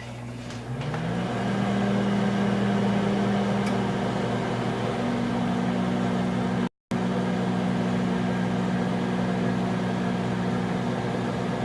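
Microwave oven running: a steady hum that rises in pitch and grows louder as it gets going about a second in, then holds level, cutting out for an instant once midway.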